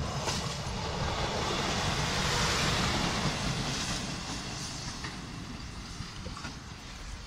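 A PESA SA103 diesel railbus passing close by on the track. Its running noise swells to a peak about two and a half seconds in, then fades as it moves away.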